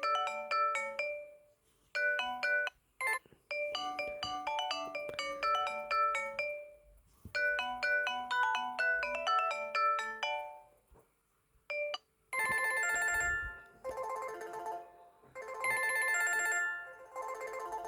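Ringtones playing on a TCL 505 phone. A short electronic melody repeats several times with brief pauses, then about twelve seconds in, after a click, a different, brighter ringtone starts and repeats.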